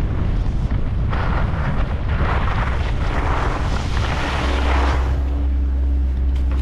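Wind buffeting a helmet-mounted GoPro's microphone during a downhill ski run, with skis scraping over snow in surges through the middle. A steady low hum comes in about four and a half seconds in.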